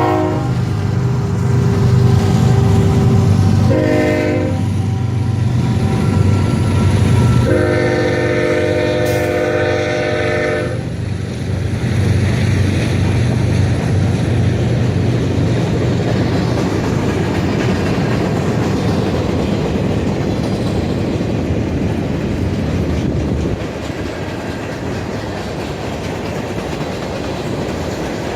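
Union Pacific freight train led by diesel-electric locomotives passing, engines running with a heavy low rumble. The locomotive's multi-note air horn sounds a short blast about four seconds in and a longer blast about eight seconds in. Later the rumble eases and steady wheel clatter from the freight cars remains.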